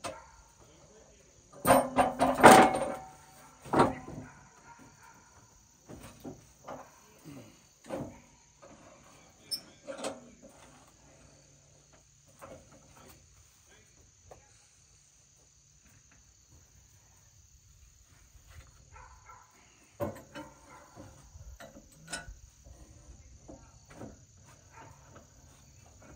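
Lumber knocking and clattering against the steel bed of a Wood-Mizer sawmill as a board is set in place. A cluster of loud knocks and clanks comes about two to four seconds in, lighter knocks follow, and another group comes about twenty seconds in. Behind it all is a steady high insect chirr.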